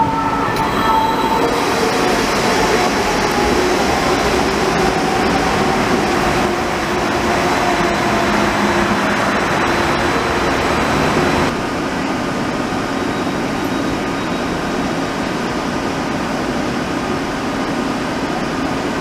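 Light rail tram running on its track: a steady rolling rumble of steel wheels on rails with a faint electric whine over it. The level steps down about two-thirds of the way through.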